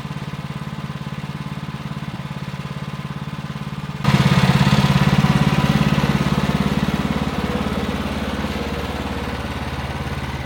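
Gas engine of a Woodland Mills portable bandsaw mill running steadily, then about four seconds in it gets suddenly louder with a rushing, noisy edge as the band blade is set to work on the cut through the pine log, easing off gradually afterwards.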